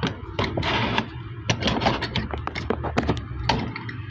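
Hard plastic parts of a Masters of the Universe Stridor horse figure clicking and knocking as its leg is moved and pieces are fitted: a string of sharp little clicks, with some rustling about half a second in.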